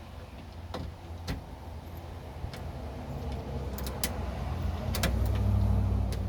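Scattered sharp clicks and knocks of metal parts as a replacement ignition lock cylinder is worked into a pickup's steering column. Under them runs a low rumble that swells near the end.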